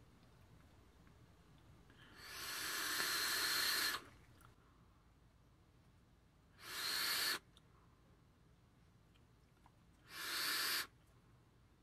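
Rushing, breathy air of someone vaping on a Geekvape Griffin 25 Mini rebuildable tank, drawing through its bottom airflow with the top airflow closed. There is one long drag that grows louder about two seconds in, then two shorter puffs near seven and ten seconds.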